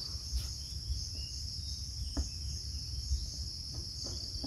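Steady high-pitched insect chorus over a low rumble, with a faint tick about two seconds in.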